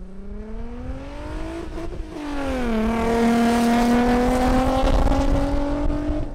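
Volkswagen Golf Mk3 accelerating hard through the gears. The engine note rises, drops at an upshift about two and a half seconds in, then climbs again and grows louder as the car comes up to and passes by.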